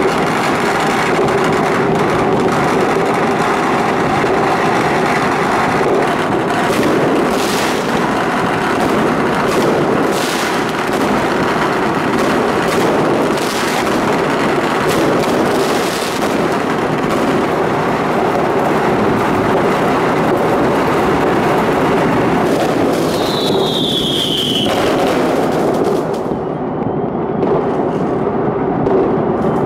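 Many distant fireworks and firecrackers going off at once in a continuous crackling din, with separate louder bangs every few seconds. A brief falling whistle comes about 23 seconds in.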